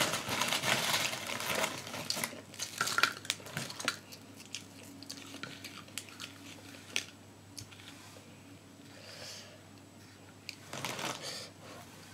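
Close-up eating sounds: crunching and chewing of rice with kerupuk crackers, mixed with crinkling as the food is handled. The sounds are dense in the first few seconds, give way to a few light clicks, and come back briefly near the end.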